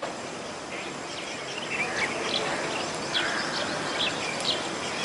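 Birds chirping repeatedly, with many short high calls starting about a second and a half in, over a steady rushing noise of water at a lake dam.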